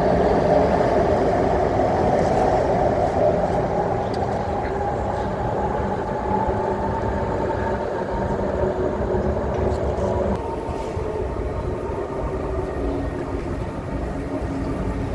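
SMRT C151 metro train pulling away, its traction motor whine rising slowly in pitch as the train's running sound gradually fades.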